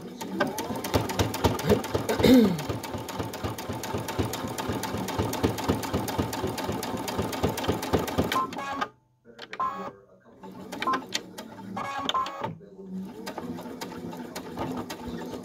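Brother Innov-is V5 computerized sewing machine stitching through fabric at a steady fast rate for about eight and a half seconds. It stops briefly, then runs again in several shorter bursts.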